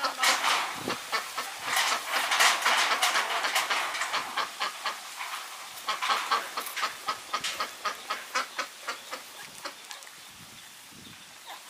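Newborn puppies nursing: many quick wet sucking clicks mixed with high squeaks and grunts. The sounds are busiest in the first half and thin out near the end.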